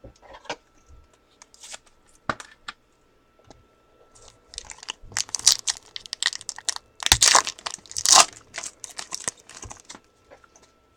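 Foil wrapper of a trading card pack being torn open and crinkled, after a few light taps and clicks; the crinkling is loudest in the second half.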